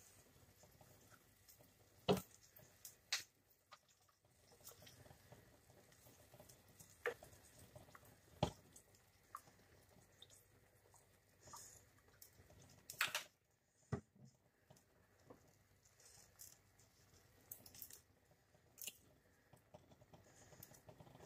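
Faint patter of a pan of sliced carrots, onions and bell peppers cooking in a little liquid as dark soy sauce is poured in. A few sharp clicks and knocks, loudest about two seconds in and again near the middle, stand out from the quiet.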